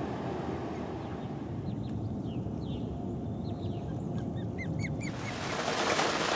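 Osprey calling from its nest: a series of short, high chirps over a low rumble. About five seconds in, a steady hiss comes up.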